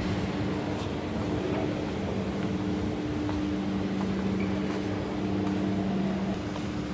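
Steady low machine hum with two held tones that swell and fade, over a constant rushing background noise.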